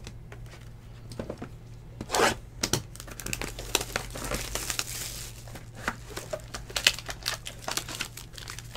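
Packaging crinkling and tearing, with scattered clicks and taps, as a Tier One trading-card box is handled and opened; the densest tearing comes around the middle.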